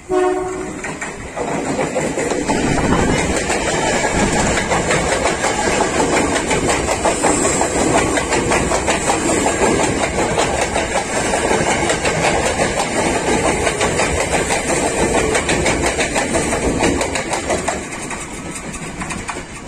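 KRL commuter electric multiple unit passing close by: a loud steady rush of wheels and running gear with rapid clacking over the rail joints, easing off near the end as the train moves away. A short steady tone, like a horn, sounds at the very start.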